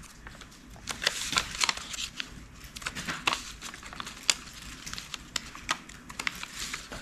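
Origami paper rustling and crinkling in a pair of hands as it is folded and creased, in scattered small crackles and clicks.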